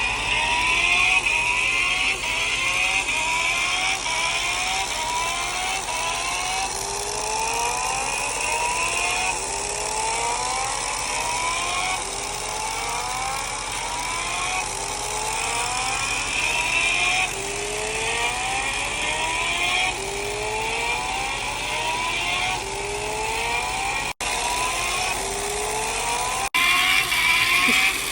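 Recorded motorcycle engine sound effect from the built-in speaker of a 1/6-scale Kawasaki H2R model, revving up again and again in rising sweeps about once a second. It cuts out briefly twice near the end.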